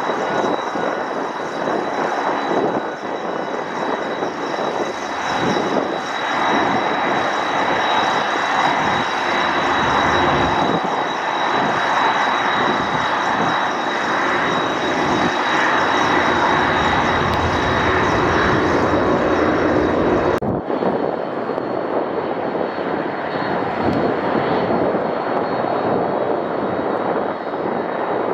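Boeing 747-400's four jet engines: a steady, loud rush with a thin high whine on top. About twenty seconds in, the highest part of the sound suddenly drops away.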